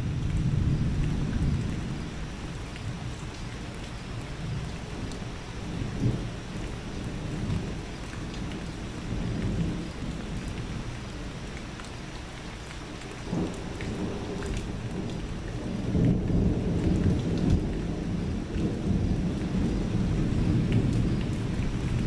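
Thunder rumbling over steady rain. The low rumble swells near the start, fades, and builds again in the last several seconds, with a brief sharper jolt a little past the middle.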